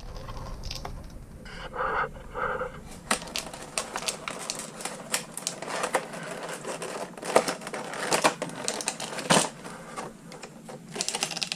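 Packaging of a trading-card collection box being handled and opened by hand: a run of irregular clicks, taps and crinkles.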